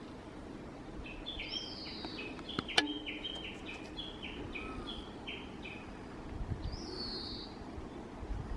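A songbird singing a quick run of short chirping notes that alternate between two pitches for a few seconds, with a higher note slurring downward near the start of the run and another about seven seconds in. A single sharp knock, the loudest sound, comes nearly three seconds in.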